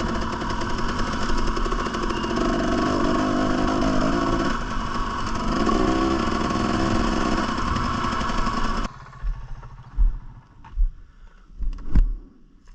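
Two-stroke TE 300 dirt bike engine running and revving up and down under load. About nine seconds in it cuts off abruptly, leaving a few faint thumps and knocks.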